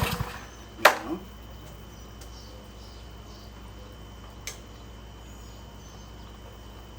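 A Cub Cadet LE 100 edger's 159cc engine stopping right at the start after briefly firing on brake parts cleaner, then a single loud sharp knock about a second in. After that there is only a low steady hum with a faint high tone and one small tick. It starts and dies, which the owner puts down to a dirty carburetor.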